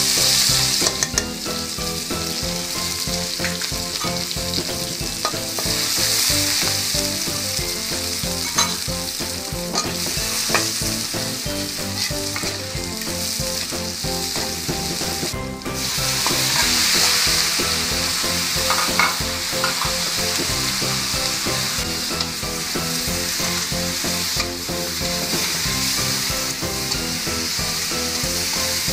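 Stir-frying in a wok: pork belly and chili–shrimp paste sizzling loudly in hot fat while a spatula tosses them, with sharp scraping clicks of the spatula against the wok. The sizzle dips for a moment about halfway through, then swells up louder again.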